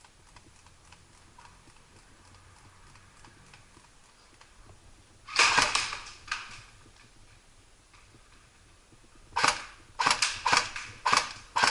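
Airsoft replicas firing: a quick burst of sharp cracks about five seconds in, then a run of single shots and short bursts near the end.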